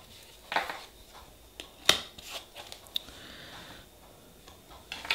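Light clicks and taps of nail-stamping tools being handled on a tabletop, with a short soft scrape, typical of a scraper drawn across a stamping plate, about three seconds in.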